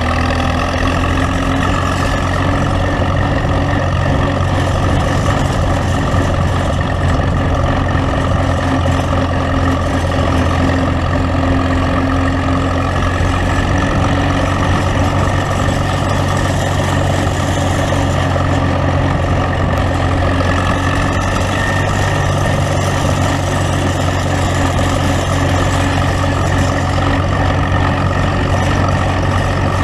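Tractor engine running steadily at an even speed as the tractor drives along, heard from the seat just behind its upright exhaust stack and muffler.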